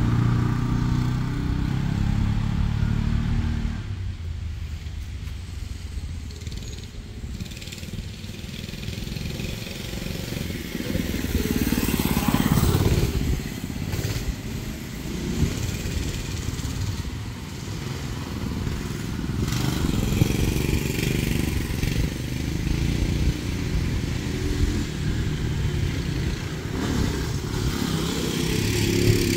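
Small off-road engines of an ATV and a Honda three-wheeler racing around a dirt track, loud at first, then fading into the distance. About twelve seconds in one passes close with its pitch rising then falling, and near the end a machine is running close again.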